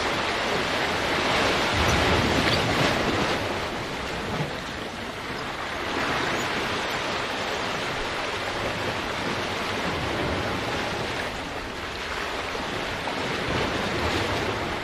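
Ocean waves washing and breaking against the rocks of a jetty, the surf noise swelling and easing as the waves come in.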